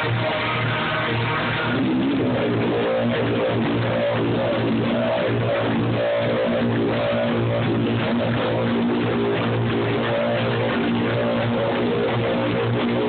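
Live music with guitar: plucked notes over a steady low drone. It grows louder and busier about two seconds in.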